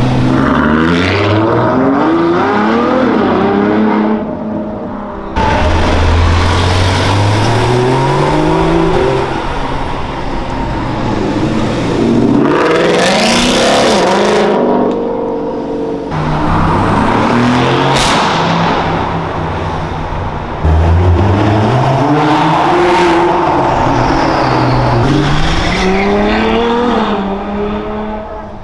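Supercar engines accelerating hard through a road tunnel in several separate passes. Each engine revs up through the gears, its pitch climbing and then dropping sharply at each upshift.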